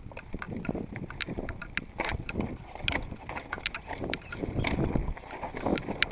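Mountain bike clattering down a rocky trail: many quick, irregular clicks and knocks from the chain, frame and tyres striking stones, over a steady low rumble.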